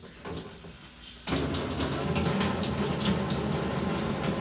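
Sink faucet turned on about a second in, then hot water running steadily into the sink.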